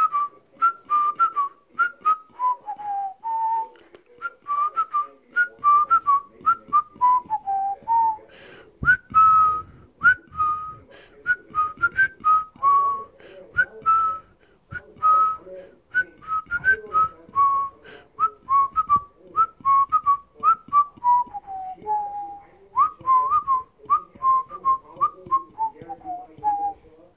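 A person whistling a TV theme tune: a melody of short notes in repeated phrases, each phrase dropping lower at its end.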